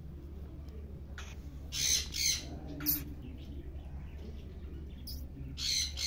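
Cockatiel squawking harshly several times while held with its wing spread for feather clipping: a quick pair about two seconds in, another a second later, and two more near the end.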